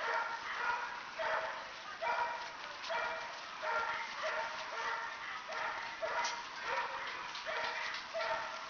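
Standard Poodle puppy barking over and over, short high barks a bit more than once a second.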